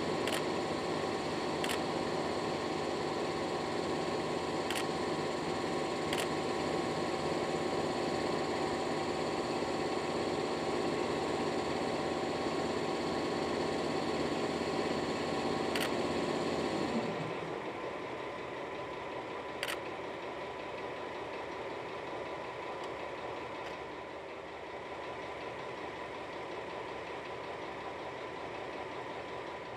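Diesel locomotive engine running steadily, a dense, even drone with a few sharp ticks over it. About seventeen seconds in the drone drops away sharply, leaving a quieter, thinner steady hum.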